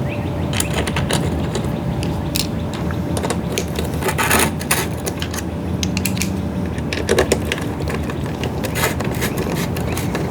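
Irregular clicking and rattling of screws, hand tools and the plastic fuel tank as it is fitted onto a leaf blower housing, with a steady low hum underneath.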